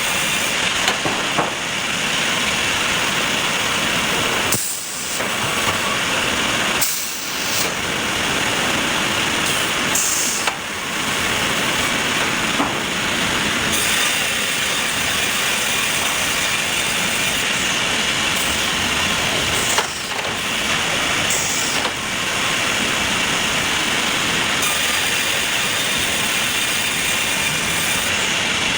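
Sawmill machinery running with a steady, loud mechanical noise, broken by brief dips about five and seven seconds in.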